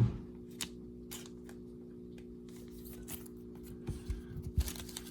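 Trading cards being handled and slid into plastic card sleeves: a sharp tap, scattered light clicks and a cluster of small knocks and rustles near the end, over a steady low hum.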